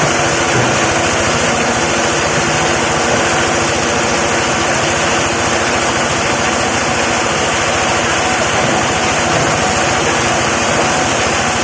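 Plastic grinding machine running steadily: a loud, even machine noise with a faint hum.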